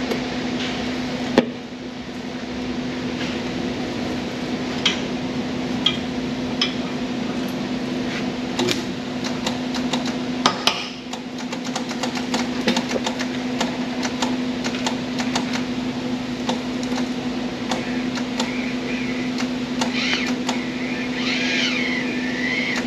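A steady hum in a workshop, with scattered sharp clicks and taps of welding gear and tools being handled, thickest about halfway through.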